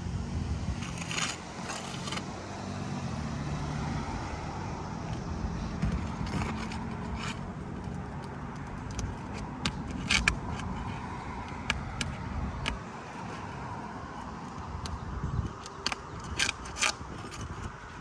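A metal roofing tool prying under asphalt shingles to break their adhesive seal strip: scraping with sharp clicks here and there, the loudest about ten seconds in and a pair near the end. Under it runs a steady low rumble.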